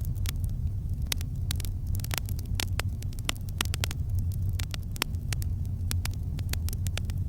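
Campfire crackling: irregular sharp pops and snaps, several a second, over a steady low rumble.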